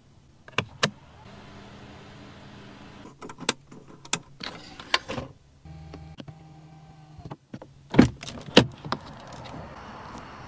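Clicks of switches and controls in a 2023 Mercedes-Benz C 260 L cabin, with a small electric motor whirring steadily twice for a second or two as the power controls are worked. Two sharp knocks near the end are the loudest sounds.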